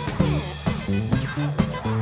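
Live band music: a drum kit keeping a steady beat with a stepping bass line under it, hits about twice a second.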